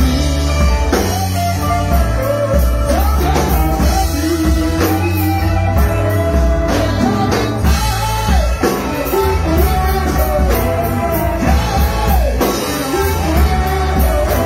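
Live rock band playing loudly and steadily: electric guitars, bass guitar, keyboard and drum kit, with a man singing lead.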